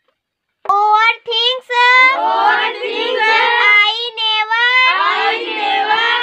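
A young girl's voice reading lines of an English poem aloud in a sing-song chant, starting a little under a second in.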